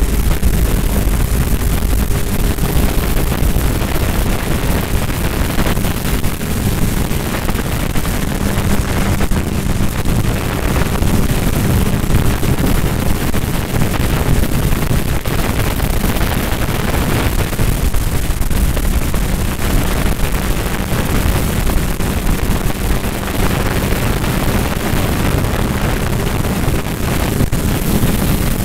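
Wind rushing over the microphone of a sport motorcycle at highway speed, with the engine running at a steady drone underneath.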